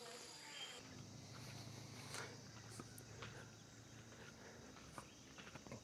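Near silence: faint outdoor ambience with a steady high insect drone and scattered light clicks.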